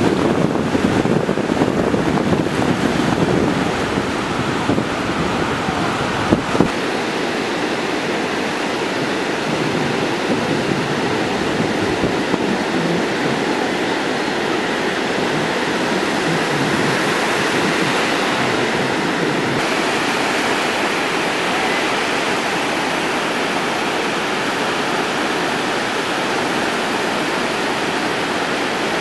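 Ocean surf breaking and washing onto the beach in a steady wash of noise, with wind buffeting the microphone. The buffeting is heaviest in the first six or so seconds, ending with a sharp click.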